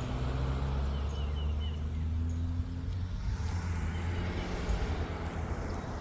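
Low steady engine hum of a running vehicle, with a few faint, short high chirps about a second in.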